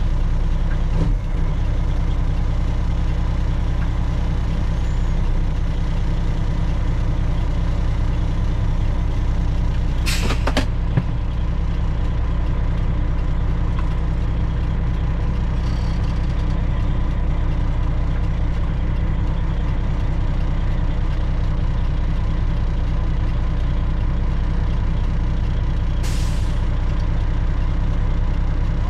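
Freightliner Classic XL semi truck's diesel engine running steadily at low revs, with two short hisses of air from the air brakes, about ten seconds in and again near the end.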